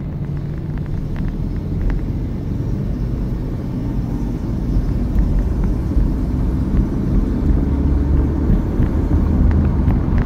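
Car interior noise while driving: a steady low rumble of engine and road, growing louder through the second half.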